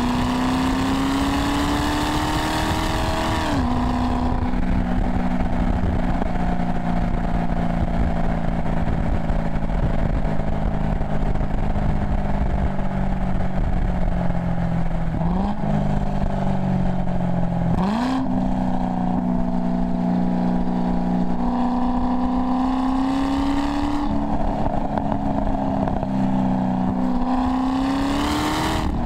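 Chevrolet Corvette V8 through its stock NPP exhaust, driving: the engine note climbs under acceleration and drops at an upshift about three and a half seconds in, holds steady at cruise with two quick sharp rises in pitch around the middle, then climbs again, drops at another upshift near 24 seconds and climbs once more near the end.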